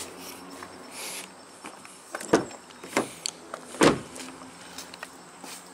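Footsteps on a walkway, then a car door handle pulled and the door latch opening: a few sharp clunks about two, three and four seconds in, the last the loudest.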